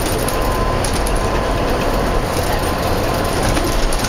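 Steady engine and road noise inside a 2005 New Flyer bus with a Cummins diesel engine, cruising at speed.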